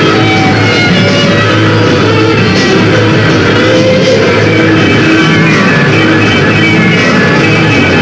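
Rock band playing live: an instrumental stretch with electric guitars and bass and no singing, at a steady, loud level.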